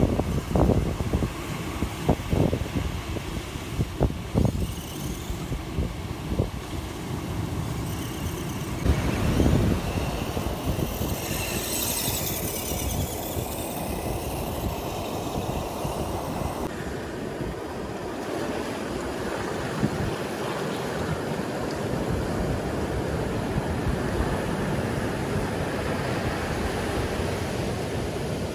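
Wind buffeting the microphone over the rush of ocean surf, gusty and uneven at first, then after about seventeen seconds an even, steady rush of waves.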